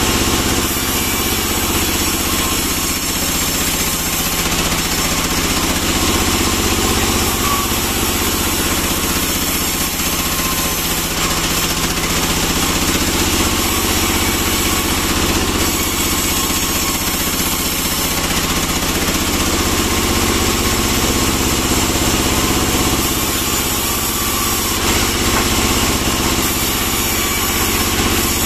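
Vertical band sawmill running steadily while it rips a pine log lengthwise: a continuous mechanical drone, unbroken throughout.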